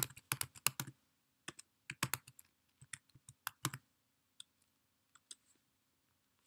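Typing on a computer keyboard: quick runs of key clicks for about the first four seconds, then a few scattered keystrokes.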